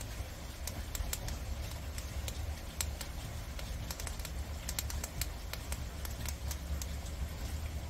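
Prairie dogs nibbling dry, uncooked noodle strands: irregular small sharp clicks of gnawing, coming several a second at times, over a low steady hum.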